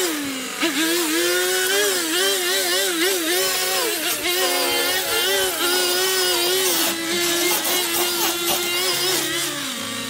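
String trimmer running and cutting thick, wet grass, its motor whine wavering up and down in pitch as the line bogs in the grass and picks up again.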